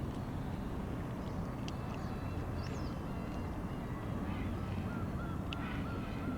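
Steady low outdoor rumble with faint, scattered high-pitched animal calls, short chirps early on and a wavering call repeated several times near the end.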